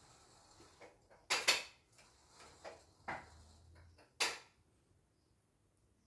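A few sharp knocks and clicks, the loudest two about a second and a half in and about four seconds in.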